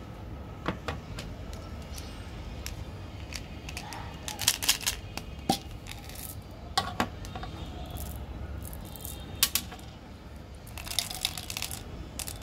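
Hard plastic candy-toy tube and its flip cap being handled, giving scattered sharp clicks and light plastic crinkles, some in quick clusters, over a steady low hum.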